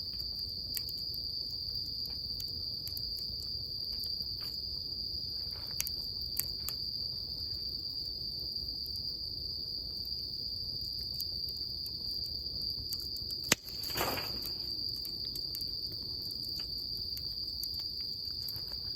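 Steady high-pitched insect chorus trilling throughout, with scattered small crackles from a wood bonfire. A sharp crack comes about two-thirds of the way through, followed by a brief rush of noise.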